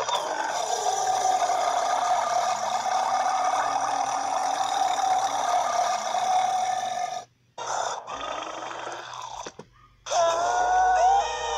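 A dinosaur character's long, drawn-out burp, held on one steady raspy pitch for about seven seconds before cutting off abruptly. After two brief gaps, shorter pitched sounds that bend up and down follow near the end.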